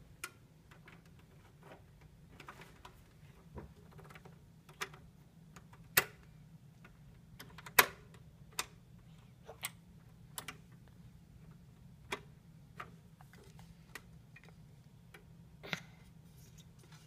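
Irregular clicks and knocks of small hands tapping and pressing the plastic case and buttons of a portable stereo, roughly one a second, the loudest two about six and eight seconds in.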